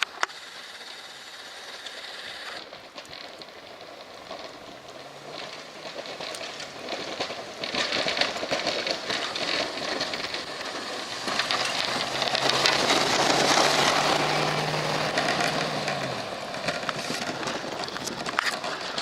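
Chevy pickup with a Western snowplow driving through the snow and pushing it: a steady engine hum under a rushing, scraping noise. It builds to its loudest about two-thirds through, then eases off.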